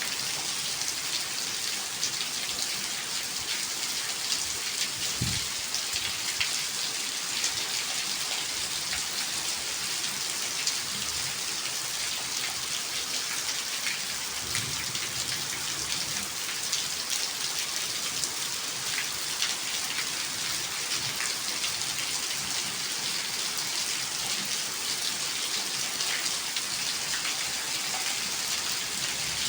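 Steady rain falling, a dense even hiss of drops spattering on hard surfaces with many small individual drop ticks.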